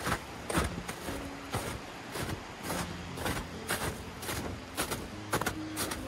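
Footsteps in spiked boots crunching on old, granular spring snow at a steady walking pace, about two steps a second.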